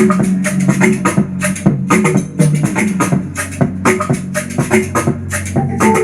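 Up-tempo music with a heavy bass and a steady driving beat, played loud through a Zealot S61 portable Bluetooth speaker, heard from the room.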